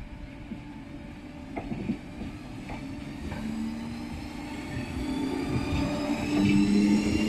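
Merseyrail electric train accelerating, its traction motor whine slowly rising in pitch as it grows louder, with a few clicks from the wheels over rail joints early on.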